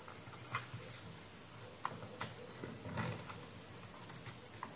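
A few faint, sharp clicks and taps from small parts and a wooden pointer being handled on a circuit board, over a faint low hum.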